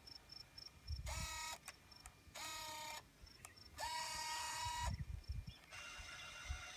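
MiniDV camcorder's tape transport mechanism whirring in four short spurts of half a second to a second each, with faint high ticks between them, as the tape is shuttled into rewind. A steadier whir starts near the end.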